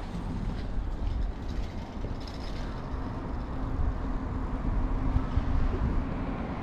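Vehicle traffic rumbling past, with a steady low hum joining about two and a half seconds in.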